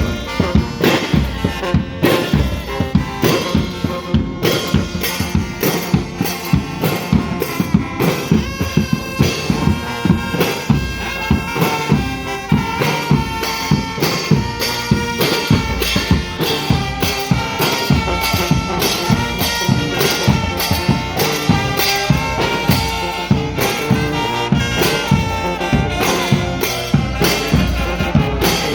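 Brass band playing a tune, with wind instruments holding the melody over drums keeping a steady beat.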